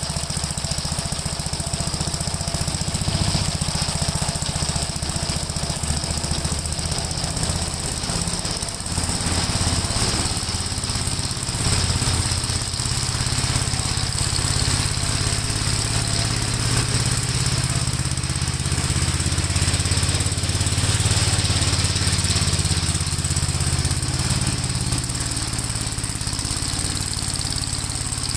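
Gravely walk-behind tractor's engine running steadily under load while driving a sickle bar mower through grass, the engine note swelling a little now and then.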